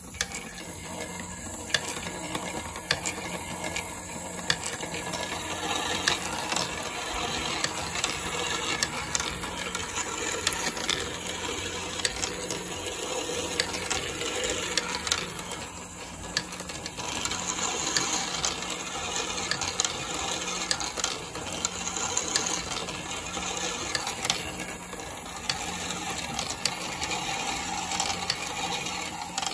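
Steel balls running through a 3D-printed PLA marble machine with a chain-and-bucket lift and spiral tracks, rolling and rattling on the plastic. Over the rolling there is a dense, irregular run of sharp clicks as the balls drop and strike each other and the track.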